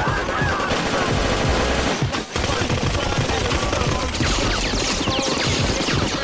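Sustained rapid automatic gunfire, a submachine gun firing long bursts, with a brief break a little after two seconds in.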